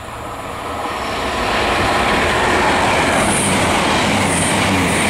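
A passenger train running past close by without stopping, its rumble and wheel-on-rail noise building over the first two seconds and then holding steady and loud, with a few brief high squeaks in the second half.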